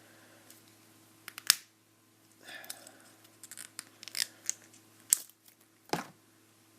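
Handling of a small plastic toy pony: a scatter of sharp clicks and brief scrapes, loudest about a second and a half in and again near the end.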